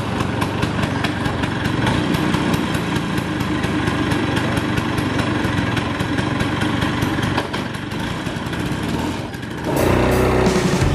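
Classic Vespa scooter's two-stroke single-cylinder engine idling with a steady, rapid pulsing. Rock music comes in about ten seconds in.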